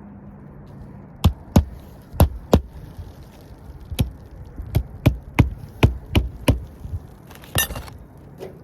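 A hammer striking about a dozen sharp blows in short, uneven runs, followed by a brief rustling scrape near the end.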